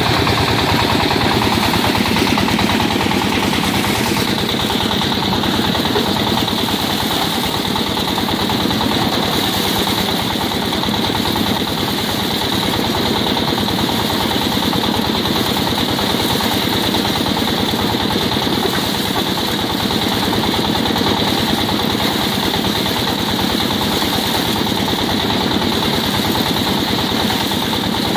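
Single-cylinder diesel engine running a Maqtron soya bean thresher at steady speed, with a fast, even knocking beat and the threshing drum whirring as dry bean plants are fed in. The sound is loud and constant throughout.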